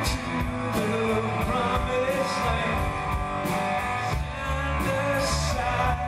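Rock band playing: a man singing over guitars and drums.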